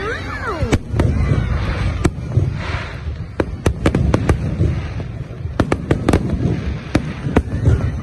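Fireworks going off: a rapid, irregular string of sharp bangs over a continuous low rumble.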